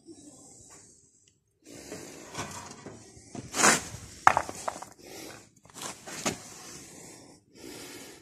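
Clanks, clicks and scrapes of steel gears and shafts being handled in a Taral M51 walking-tractor gearbox housing, with a sharp knock about four seconds in.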